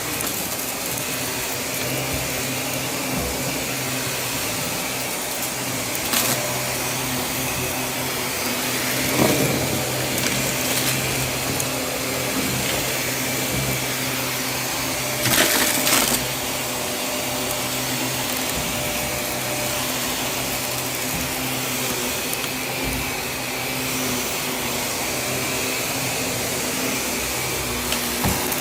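Vacuum cleaner running steadily over carpet, a constant motor hum and whine, with a few short crunchy cracks as dry grit and soil are sucked up.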